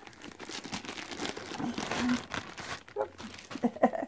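A cardboard box being pulled open by hand, its flaps and packaging giving a dense run of small crackles and rustles, with a person's brief vocal sounds near the end.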